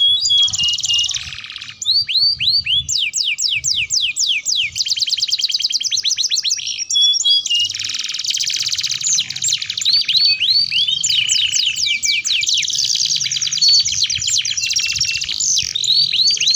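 Domestic canary in full song: long, fast phrases of rapid trills and repeated down-slurred notes, one phrase running into the next, with a brief break about a second and a half in.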